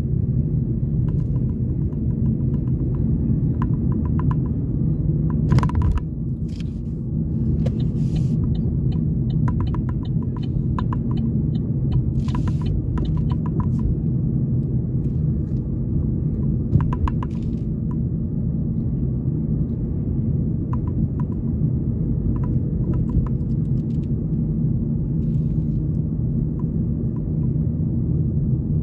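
Steady low rumble of a car driving, engine and tyre noise heard from inside the cabin, with scattered faint clicks and a sharper click about six seconds in.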